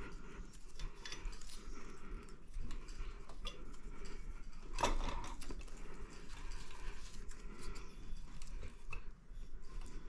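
Small irregular clicks and scrapes of the fan's white neutral wire and the house's white wire being handled and twisted together by hand, with one sharper click about five seconds in.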